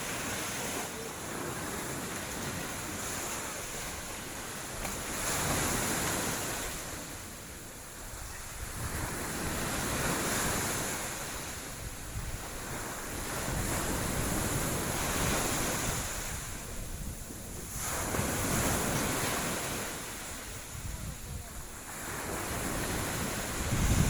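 Sea waves washing onto the beach, swelling and falling away about every four seconds, with wind rumbling on the microphone.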